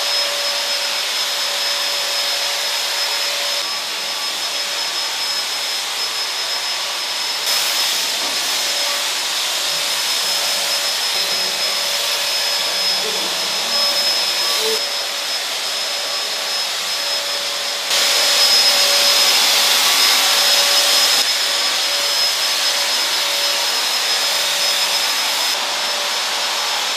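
Handheld electric cold fogger spraying disinfectant: a steady motor whine over a rush of air, its level shifting a few times and loudest for about three seconds two-thirds of the way through.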